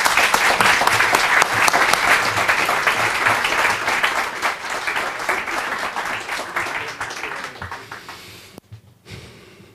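Audience applauding, loud at first and dying away over several seconds before stopping near the end.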